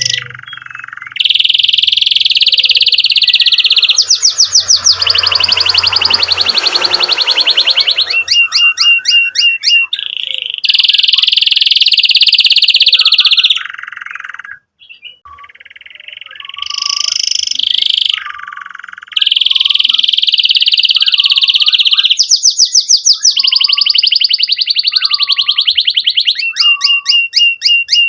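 Domestic canary singing loudly in long rolling trills and fast runs of chirped notes, with short pauses between phrases.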